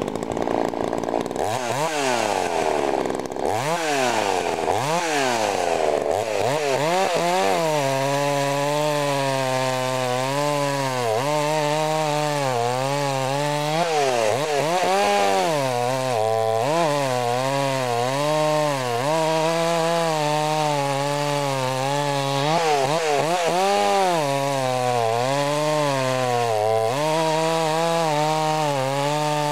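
Ported Earthquake 38cc two-stroke chainsaw revved up and down several times, then held at full throttle cutting into a log from about seven seconds in, its pitch dipping and recovering under the load of the cut.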